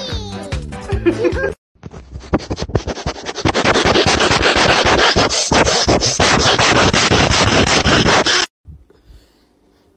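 A dog's nose sniffing and rubbing right against the microphone: a loud, rough scratching noise that starts about two seconds in and cuts off suddenly near the end. A short snatch of music plays at the very start.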